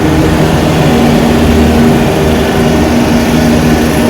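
Carrier 30GT air-cooled chiller running: its condenser fans and compressors make a loud, steady machine roar with a constant low hum.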